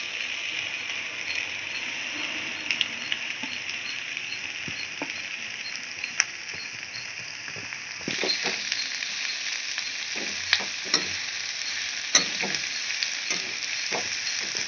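Chopped vegetables sizzling in hot oil in a kadai. From about halfway the sizzle grows louder, and a metal slotted ladle stirs and scrapes the pan with repeated clicks and knocks.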